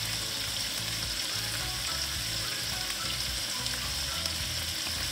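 Marinated chicken pieces sizzling steadily as they fry in oil in a pan over medium-high heat.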